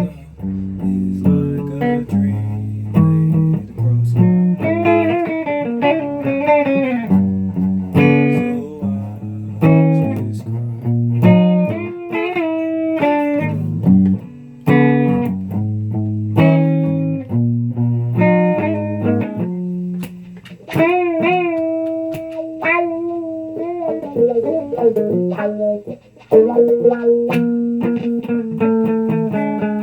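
Guitar playing: a run of single plucked notes over a lower line, with a few bent notes about two-thirds of the way through and a short break just before the end.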